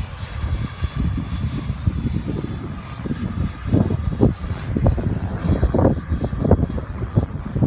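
An F-15 jet in flight: a loud, uneven rumble with crackling surges and a thin steady high whine.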